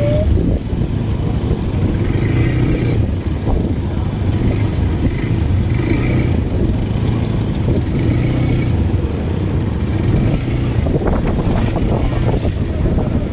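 ATV engine running steadily while riding, with a cluster of rattling knocks near the end.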